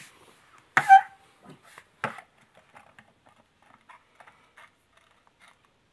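Two sharp knocks from the plastic torch rig being handled, about a second and two seconds in, the first the louder with a brief ring. Light clicks and taps follow.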